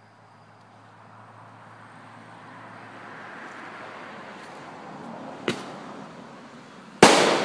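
Consumer aerial fireworks: a hiss builds over several seconds, then a sharp crack about five and a half seconds in, then a loud bang near the end.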